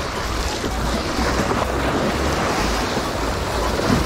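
Waves washing and splashing over jetty rocks, with wind buffeting the microphone in a low, uneven rumble.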